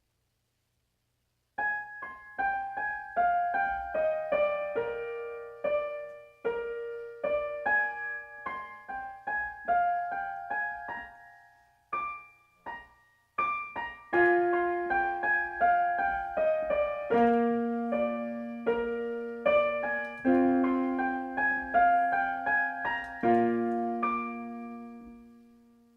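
Solo piano playing a slow melody over chords, about two notes a second. It breaks off briefly about halfway, returns with fuller chords, and the last chord rings and fades out.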